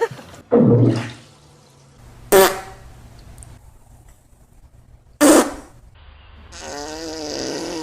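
A series of animal farts: short sharp blasts, each apart from the next by a pause of a second or more. Near the end comes a longer, wavering pitched sound.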